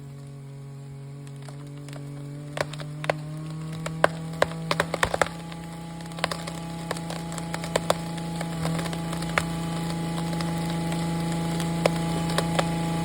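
Wood cracking and splintering in a string of sharp snaps, most of them in the first half, as a cut tree breaks and goes over. Under it an engine hums steadily, most likely the chainsaw idling after the cut.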